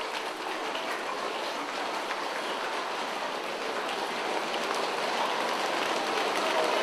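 A group of children making a rainstorm sound with their hands: a steady hiss of palms rubbing and light pattering taps that grows louder in the second half.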